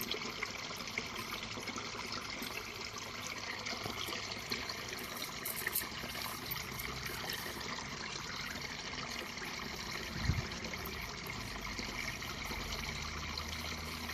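Steady trickling background noise, like running water, with a few light clicks and one soft knock about ten seconds in.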